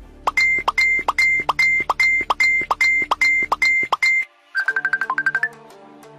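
Electronic beeping at one pitch, about three beeps a second over a low steady tone, stopping after about four seconds. A quick plinking jingle like a phone ringtone follows.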